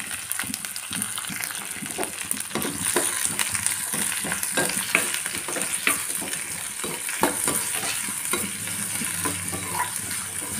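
Chopped onion, green chillies, garlic and cumin sizzling steadily in hot oil in a steel kadai, while a spatula stirs them with frequent short scrapes and taps against the pan.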